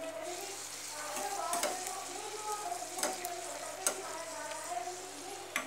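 Puri for pani puri deep-frying in hot oil, a steady sizzle. A metal slotted skimmer clinks sharply against the pan four times as it presses and turns the puri.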